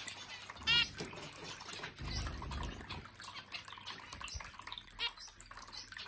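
Water trickling from a small electric bird-bath fountain, its jets falling into a shallow basin, with a short series of finch chirps a little under a second in.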